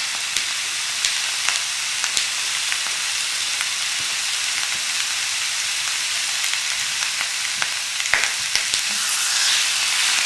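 Cubes of pork belly sizzling as they sear in a hot wok with no added oil, rendering their own fat. Scattered sharp clicks come from pieces dropped into the pan and a spatula against it, and the sizzle grows louder near the end.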